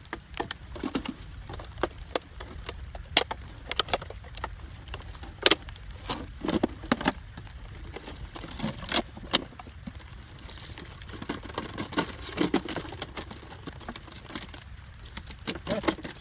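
Irregular sharp knocks and splashes of water, uneven in spacing, over a steady low rumble.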